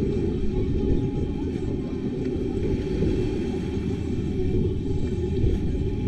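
Steady low rumble of wind buffeting the microphone.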